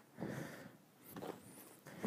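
Breathing hard and footfalls of a person doing lunges with a twist, in a few short bursts.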